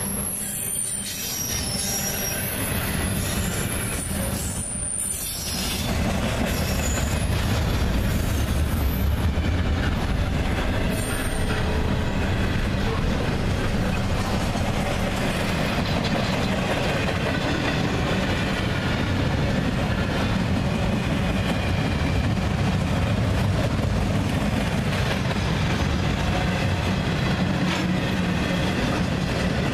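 Freight train cars rolling past on the rails: a steady rumble with clickety-clack and high-pitched wheel squeal, the squeal plainest in the first few seconds.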